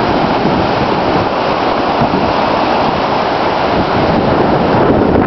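Storm-force wind gusts blowing hard across the microphone: a loud, steady rush of wind noise that swells slightly near the end.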